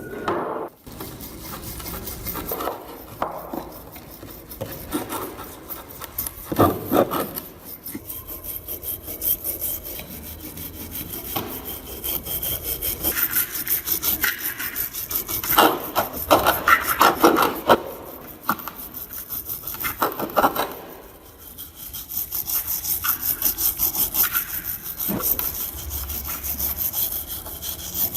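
Rapid back-and-forth abrasive scrubbing on rusted metal of a vintage manual meat grinder, the strokes coming louder in spells and easing briefly about three-quarters of the way through.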